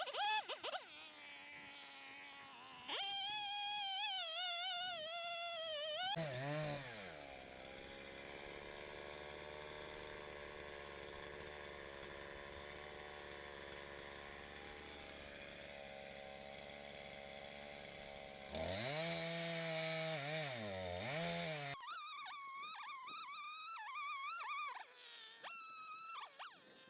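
Two-stroke chainsaw cutting at high revs, its pitch wavering under load. About six seconds in it drops to a steady idle. It is revved briefly twice at about nineteen to twenty-one seconds, then runs at high revs again through the last five seconds with a short dip.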